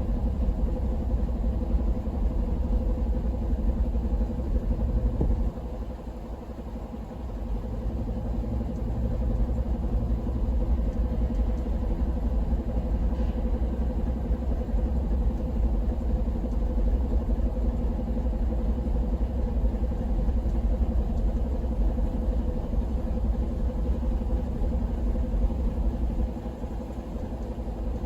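Old farm truck's engine idling steadily, with a dip in level about five and a half seconds in and again near the end.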